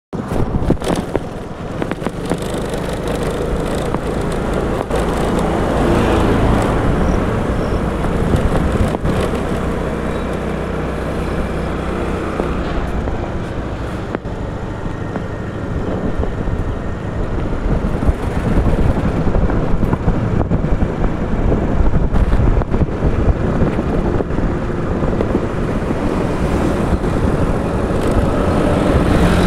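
Honda scooter being ridden along a road at a steady, moderate speed: its small engine running under way, mixed with road noise.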